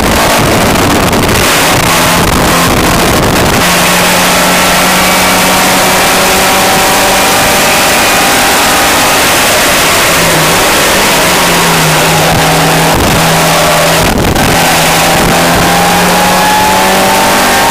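Car engine heard from inside the cabin while lapping a race track: a rough, loud run at first, then a steady engine drone that dips and recovers in the middle, with one short sharp noise late on, and a rising note near the end as the car accelerates.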